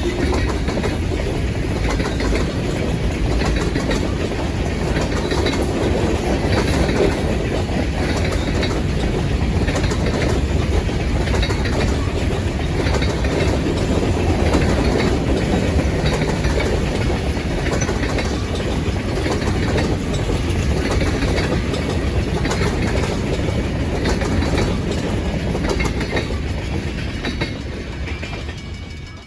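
Freight train cars rolling by, their wheels clicking steadily over the rail joints. The sound fades out near the end.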